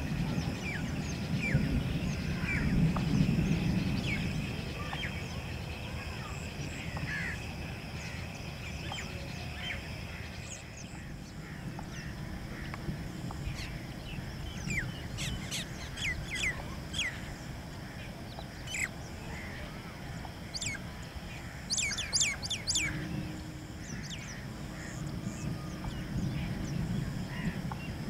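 Birds chirping in a grassy field: scattered single chirps, with quick runs of sharp chirps about halfway through and again a few seconds later.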